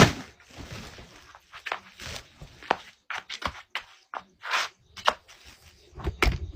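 Ears of corn being husked by hand: an irregular run of short tearing rasps and sharp snaps.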